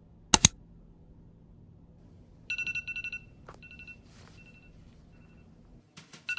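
Two sharp clicks, then a smartphone alarm going off about two and a half seconds in: rapid pulsing electronic beeps that break off and come back in shorter bursts, starting again near the end.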